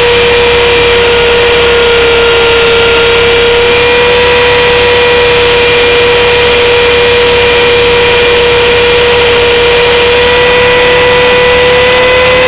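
Blade 400 electric RC helicopter's brushless motor and rotor running at a steady speed: a loud, steady high whine that holds one pitch.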